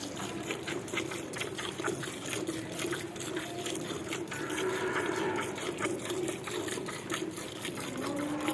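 Cow being milked by hand: quick, rhythmic streams of milk squirting into a pail as it fills.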